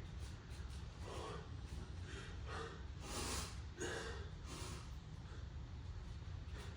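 A man breathing hard from exertion, a quick rhythmic series of breaths in and out, over a steady low hum.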